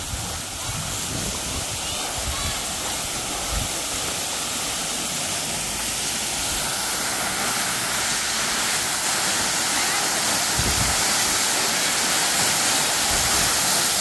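Waterfall crashing down onto rocks and into a shallow river pool: a steady rushing hiss that grows gradually louder towards the end.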